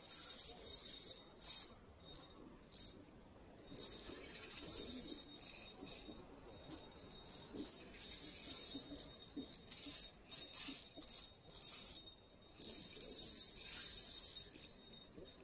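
Spinning reel being cranked to retrieve a cast lure, a faint whirring rattle that comes in stretches of a second or two with short pauses between.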